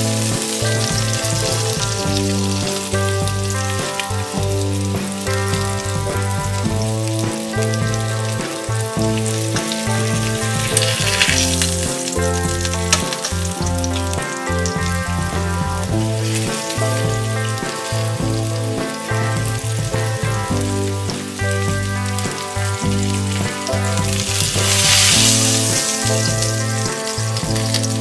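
Flour-dusted veal shanks searing in hot olive oil in a frying pan, a steady sizzle that swells twice, about eleven seconds in and again near the end, as the pieces are turned over. Background music plays throughout.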